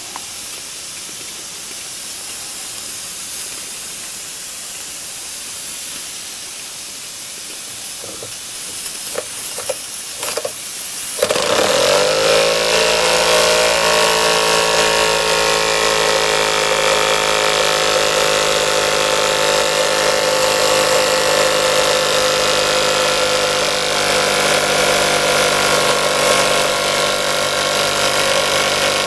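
DM1 model two-cylinder steam engine hissing steam, with a few clicks, for about the first eleven seconds. Then it suddenly speeds up, rising briefly in pitch to a loud, steady, pitched running drone as it spins the flywheel and dynamo.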